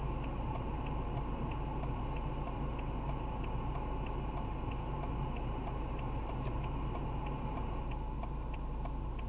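Car's turn-signal indicator ticking evenly about twice a second while the car sits at idle, over a steady low hum of the idling engine heard in the cabin.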